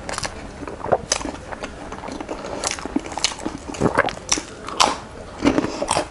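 Close-miked eating: a person biting and chewing food, with irregular sharp mouth clicks and crunches.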